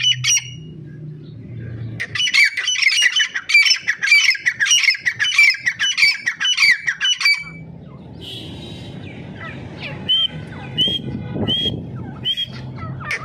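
Captive francolins (teetar) calling: a rapid run of harsh, high squawking notes for about five seconds, then, after a pause, four short rising calls. A low rumble sits under the quieter stretches.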